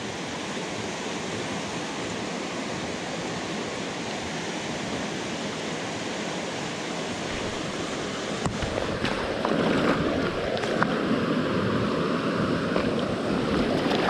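Small rocky river rushing over a riffle: a steady rush of water. About eight seconds in it grows louder and closer, with a few sharp knocks and splashes near the end.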